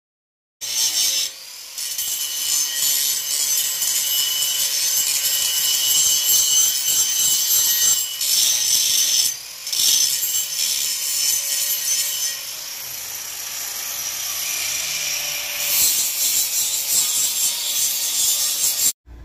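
Angle grinder grinding the steel frame of a welded iron gate: a loud, steady grind. It starts about half a second in, eases off briefly twice and cuts off suddenly just before the end.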